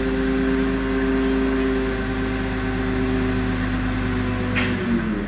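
Heavy diesel engine of lifting machinery running steadily at high revs under load. About four and a half seconds in there is a short sharp noise, and the engine speed drops right after it.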